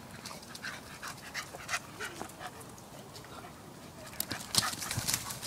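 A Podenco Canario and a smaller dog at play, with quick scuffs and short dog noises. A louder flurry comes about four and a half seconds in.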